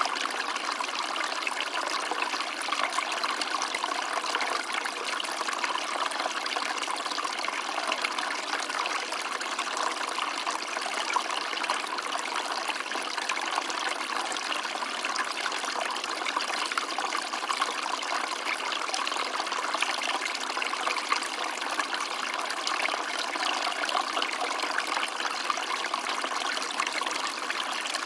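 Small stream of water flowing and trickling steadily over stones, a continuous bubbling rush with fine splashes.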